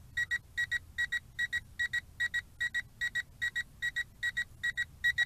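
Potensic D58 drone remote controller beeping a really quick warning: short, high double beeps, about three pairs a second. The pilot takes it for the warning that the drone's battery is getting low.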